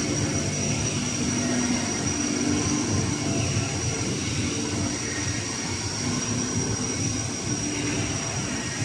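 Steady din of CNC machine tools running in a machine shop, with a constant high whine.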